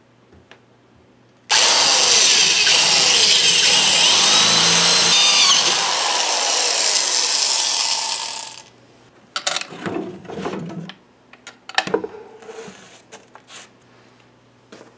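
Power drill boring a hole through a wooden desktop, running loud and steady for about seven seconds before it stops. A few short knocks and rustles follow.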